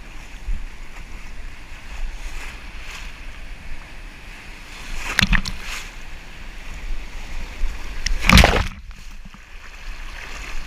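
Foaming surf washing over a camera held low in the shallows, with a steady rumble of wind and water on the microphone. Two louder splashes of waves rush over it, about five seconds in and, loudest, about eight seconds in. After the second splash the sound briefly goes dull.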